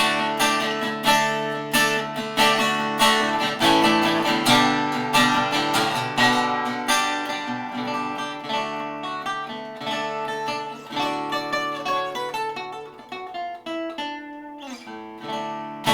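Custom 18-inch X-braced archtop guitar being strummed: a quick run of chords for the first half, then slower strums with the chords left to ring, dropping quieter near the end.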